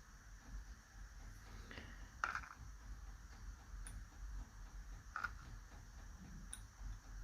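A few faint, sharp clicks and taps of small metal lock parts being handled: the sliders of a disassembled ASSA Desmo cam lock knocking together. The loudest click comes about two seconds in.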